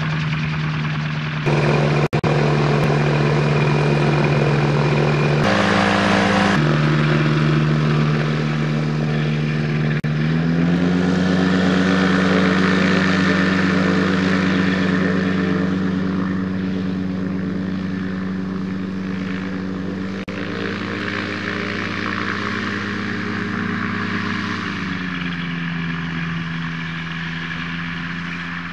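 A Dominator gyroplane's engine and pusher propeller running steadily on the ground. The engine speed steps up about a third of the way through, holds, then eases back near the end.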